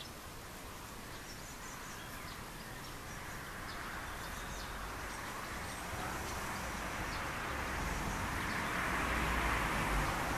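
Outdoor background noise: a broad hiss swells slowly and is loudest near the end, over a low rumble.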